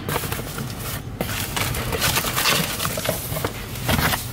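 Corrugated cardboard shipping box being opened by hand: flaps scraping and crackling as an inner product box slides against them, over the low rumble of a car driving.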